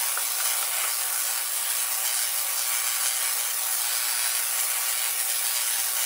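Tesla coil firing, its purple spark streamers giving a steady hiss. The coil steps mains power up to about 125,000 volts at around 500,000 cycles per second.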